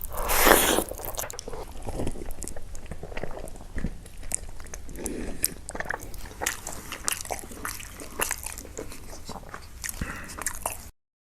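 A person eating close to the microphone, biting and chewing with many small crunches. The sound cuts off suddenly near the end.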